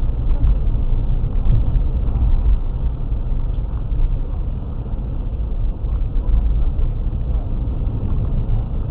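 Steady low rumble of a car on the move, picked up by its dashboard camera: engine and road noise with no distinct events.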